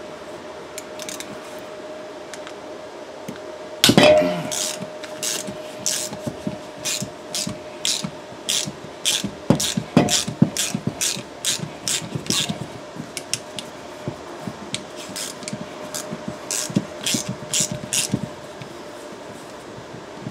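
Hand ratchet with an E-Torx socket clicking in short uneven runs as a stud is driven into an A/C compressor, after one sharp knock about four seconds in. A faint steady hum runs underneath.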